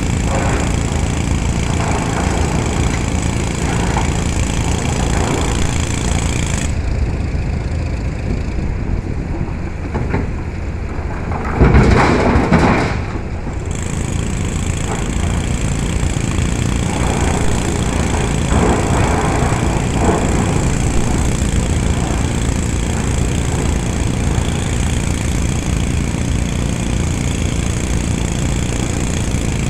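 Heavy diesel machinery running steadily as a LiuGong 924E excavator digs and loads rock. About twelve seconds in, a loud crash lasting a second or two, rock tumbling from the bucket into a tipper truck's steel bed.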